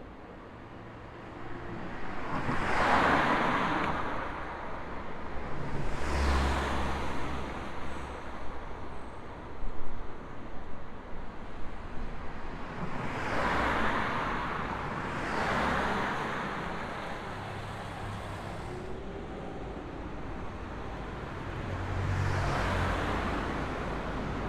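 Road traffic: about five vehicles pass one after another, each a swell of tyre and engine noise that rises and fades over a second or two, over a low rumble.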